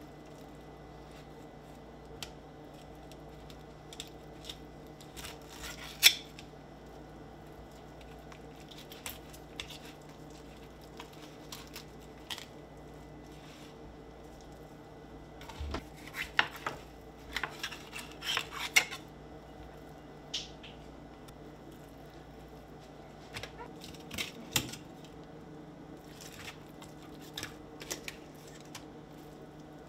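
Fillet knife cutting through fish and clicking and scraping against a hard cutting board, in scattered taps and scrapes over a low steady hum. The loudest is a sharp click about six seconds in, with a busier run of clicks and scrapes about halfway through.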